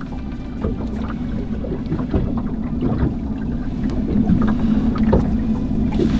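Boat motor running with a steady low hum, with scattered small clicks of fishing tackle being handled.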